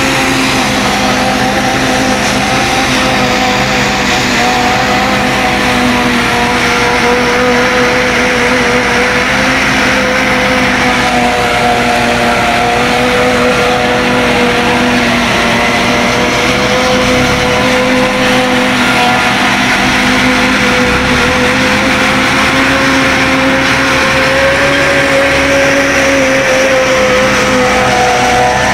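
Forage harvester running steadily while cutting and chopping standing maize for silage: a loud, constant machine drone with a steady hum that wavers only slightly in pitch.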